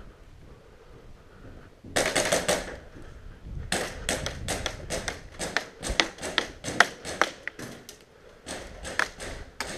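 Airsoft gunfire: a short rapid burst of shots about two seconds in, then a long run of scattered sharp cracks and taps, a few a second.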